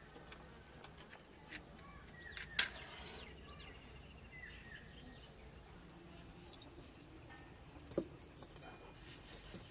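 A match struck on its matchbox, a single sharp scrape about two and a half seconds in, lighting a clay mud stove. Near the end a dull knock as a metal kadai is set down on the stove, with faint bird chirps throughout.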